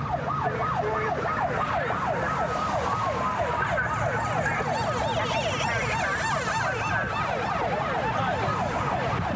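Police car siren in rapid yelp, its pitch sweeping up and down about four times a second, over the rumble of the cruiser's engine and road noise during a pursuit.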